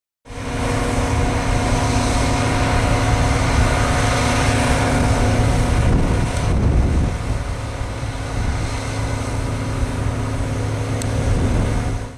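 John Deere self-propelled forage harvester running steadily while cutting and chopping wheat for silage, a loud engine-and-machinery drone with a few steady tones in it, alongside a truck running next to it. The drone wavers and shifts briefly about six seconds in, then settles again.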